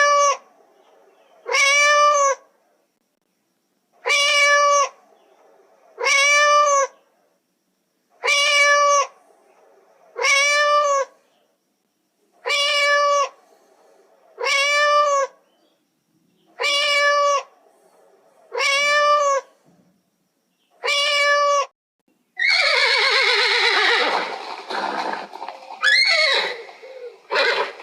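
A cat meowing over and over, the same short arched meow about every two seconds, about ten times. About three quarters of the way through, a horse gives a long whinny that falls in pitch.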